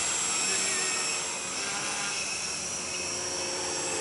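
Small electric quadcopter's motors and propellers running in flight: a steady buzz with several whining tones.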